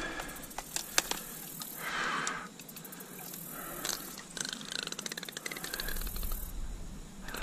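Handling noise close to the microphone: scattered sharp clicks and knocks with a few short rustles.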